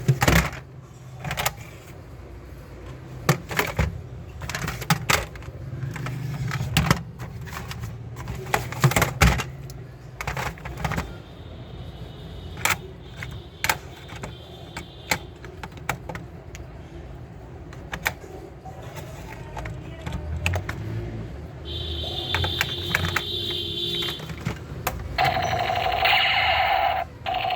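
Plastic toy gun being handled and clicked: a string of sharp irregular clicks and clacks. Near the end comes the toy's electronic sound effect, steady warbling tones.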